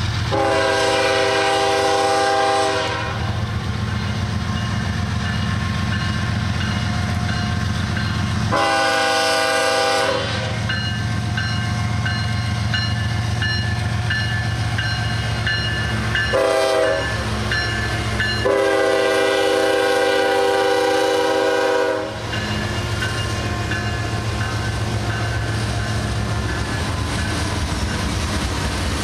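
CSX diesel freight locomotive's multi-chime air horn sounding the grade-crossing signal: long, long, short, long, with the final blast the longest. Under the horn, the lead diesel locomotives run at a steady low rumble and the coal hopper cars rumble along the rails as they pass.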